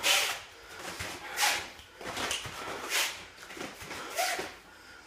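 Short, sharp hissing breaths out while shadow boxing, about four of them, roughly every second and a half.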